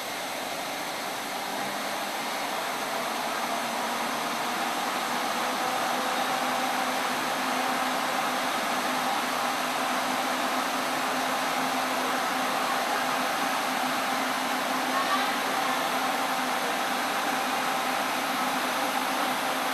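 WAG-9 electric locomotive's air compressor running: a steady mechanical hum with a few steady tones in it, growing a little louder over the first few seconds as the locomotive moves slowly past.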